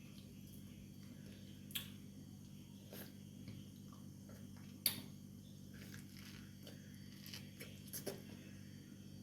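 Faint, scattered clicks and crunches of a knife and teeth on frozen mango, the loudest just before the middle, over a steady low hum.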